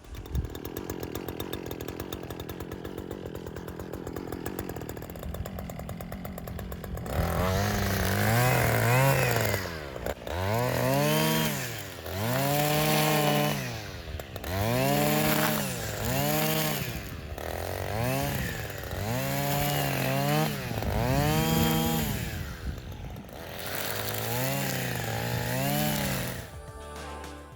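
A small engine buzzing steadily, then revved up and down over and over, each rise and fall lasting about two seconds.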